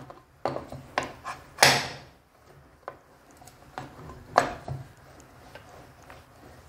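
A rolling pin knocking and rolling on a round metal rolling board while a disc of gram-flour dough is flipped and rolled out: a run of sharp clacks, the loudest about a second and a half and about four and a half seconds in, then softer rubbing.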